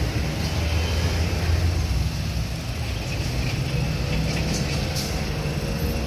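Steady low rumble of a BMX bike rolling over a concrete sidewalk, mixed with wind on the microphone, with a few faint clicks about four to five seconds in.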